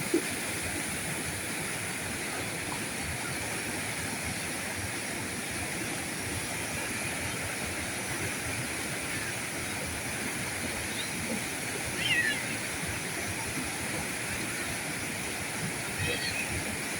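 River current flowing steadily, a continuous rushing of water. Brief high chirps stand out twice, about two-thirds of the way in and near the end.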